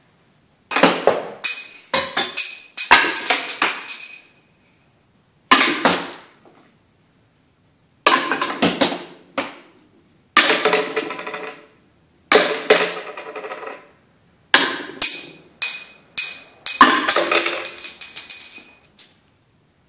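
Small plastic rings tossed at a crate of plastic carnival bottles, each toss a quick clatter of clicks and rattles as the ring strikes the bottles and bounces on the table, dying away within a second or two. There are about eight tosses, some landing close together.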